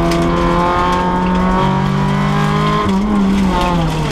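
Renault Clio rally car's engine heard from inside the cabin, running hard with its pitch holding with small steps, then the revs falling steadily near the end.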